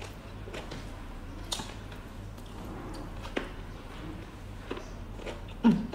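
Close-miked eating sounds: chewing with soft, irregular wet mouth clicks while fingers squeeze and mix rice on a plate. A louder smack comes just before the end.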